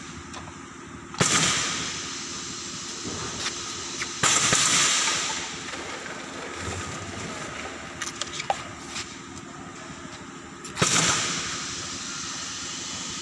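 Pneumatic twin-nozzle piston paste filler cycling: three sudden loud hisses of compressed air from its valves and cylinders, about a second, four seconds and eleven seconds in, each fading over about a second. A few light clicks come near the middle, over a steady hum.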